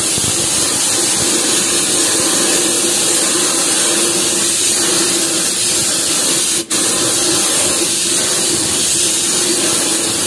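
Gravity-feed air spray gun hissing steadily as it sprays 2K clear coat, with a steady low tone under the hiss. The spray stops for an instant about two-thirds of the way through, then carries on.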